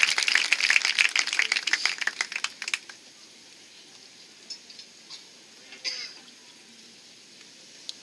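Audience applause that fades out about three seconds in, followed by quiet with a few faint scattered sounds.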